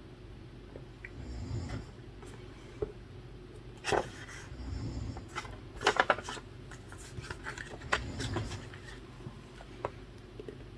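A person snoring, low rumbling snores coming about every three seconds. Sharp clicks and taps over it, the loudest about four and six seconds in.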